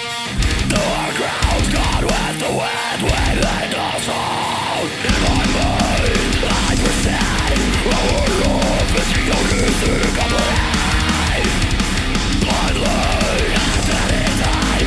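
Instrumental passage of a heavy rock song with no singing. About five seconds in the bass and drums come in fully and the sound thickens into a dense, loud wall.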